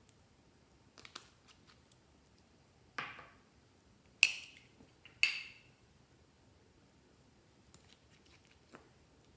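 A handful of sharp clicks and snips spread across the stretch, the loudest two about a second apart near the middle, each with a short tail.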